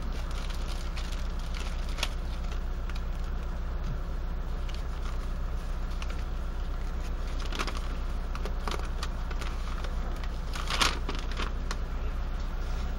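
Plastic packaging and a paper sheet being handled and unfolded: scattered crinkles and rustles, with the sharpest crackle about three-quarters of the way through. A steady low background rumble runs underneath.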